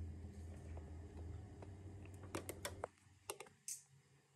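Faint low hum with a handful of sharp, irregular clicks in the second half. The hum drops out about three seconds in.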